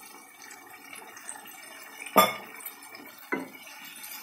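Wooden spoon stirring watery masala gravy in a nonstick pot, with two sharp knocks of kitchenware, a loud one about two seconds in and a softer one a second later.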